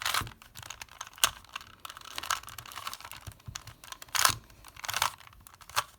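Rubik's Cube layers twisted quickly by hand: a fast run of plastic clicking and scraping turns with several sharper clacks, as a last-layer corner-swapping algorithm is carried out.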